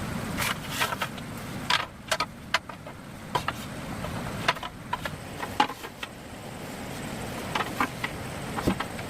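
A series of irregular light knocks and clicks, some in quick pairs, over a steady low rumble.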